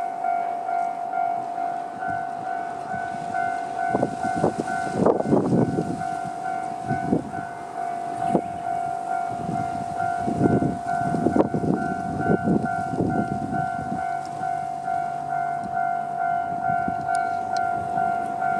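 Electronic level-crossing alarm ringing in a steady repeating two-tone pattern. A Kanto Railway KiHa 5020-series diesel railcar passes through it, its wheels knocking over rail joints in clusters through the middle of the stretch. A low steady hum comes in near the end.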